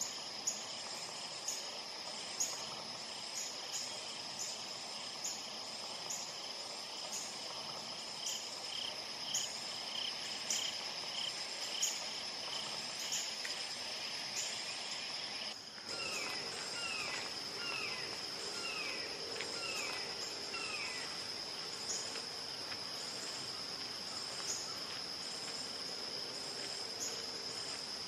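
A red-shouldered hawk gives a series of about eight downward-slurred kee-ah calls, one roughly every half-second, starting about two-thirds of the way in. Throughout, a steady high insect chorus of crickets trills with regular ticking.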